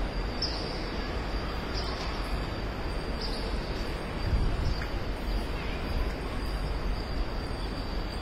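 Steady outdoor ambience: insects droning on one constant high note, with a few short chirps near the start, over a low rumble of wind on the microphone.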